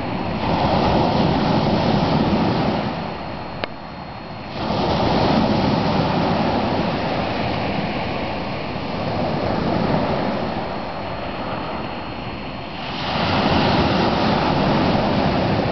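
Small sea waves breaking and washing up a pebble beach, surging and falling back in slow swells every few seconds. A single faint click comes a few seconds in.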